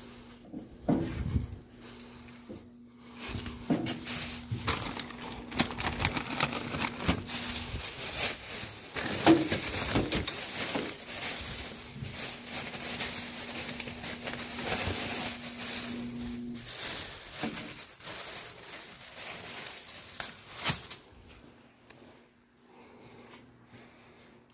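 Thin plastic bags rustling and crinkling as they are handled, with a few light knocks from items being moved. A faint steady hum comes and goes underneath.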